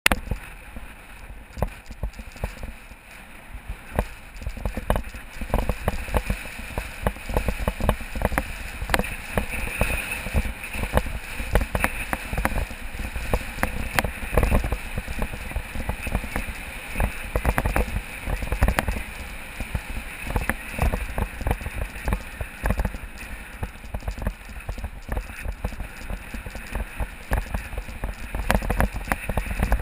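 Wind rumbling over an action camera's microphone as a road bicycle rides along, with frequent small knocks and rattles from road vibration.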